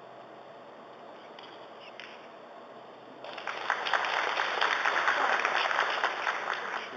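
Audience applauding, starting suddenly about three seconds in and dying away near the end. A single faint click, likely the cue striking the ball, about two seconds in.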